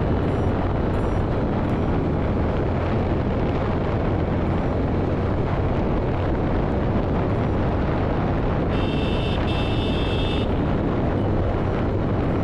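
Motorcycle riding along, its engine's steady low hum under heavy wind buffeting on the action camera's microphone. About nine seconds in, a shrill high tone sounds for about a second and a half.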